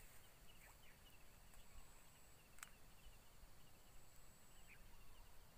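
Near silence: faint outdoor ambience with an insect's rapid pulsed chirping, and a single small click about two and a half seconds in.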